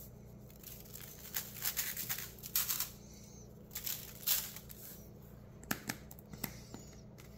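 Garlic salt shaken out of a shaker bottle: several short bursts of shaking in the first half, then a few light clicks.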